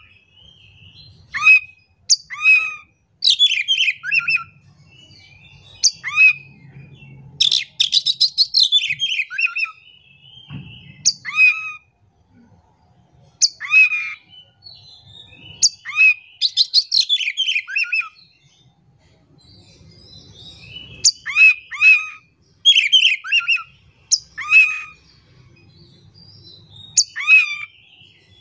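Oriental magpie-robin (kacer) singing: loud, varied phrases of rapid chirps, trills and downward-sweeping whistles, each a second or two long with short pauses between.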